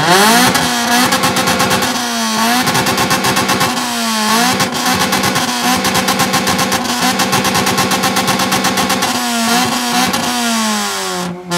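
Acura Integra's four-cylinder engine revved through its exhaust and held at a steady high pitch with a rapid stutter, dipping briefly and coming back up a few times, then letting the revs fall away near the end.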